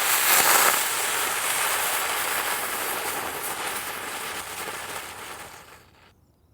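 Snake smoke firework burning with a dense crackle, loudest in the first second, then steady, dying away about six seconds in.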